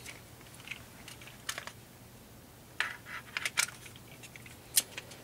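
Scattered light clicks and taps of small hard plastic parts being handled, with a cluster of them about three seconds in and a sharper click near the end.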